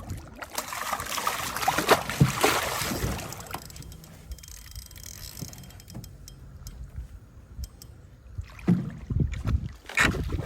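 A burst of water splashing at a small fishing boat for about three seconds, then a low rumble with scattered knocks.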